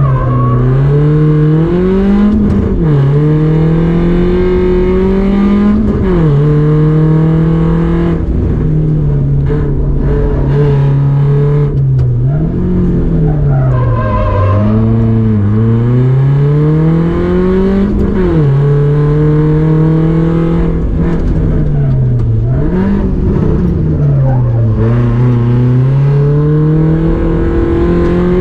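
Rally car engine driven hard. Its pitch climbs and then drops sharply at each gear change, and falls more slowly where the car slows for corners before climbing again.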